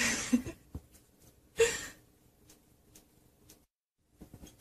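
Newspaper rustling twice briefly as it is moved over a cockatiel, with a few faint ticks.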